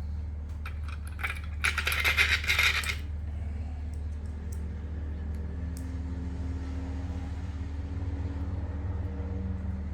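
Small metal screws clinking and rattling as they are picked out of a parts tray: a few clicks, then a second or so of dense jingling. A steady low hum sits underneath.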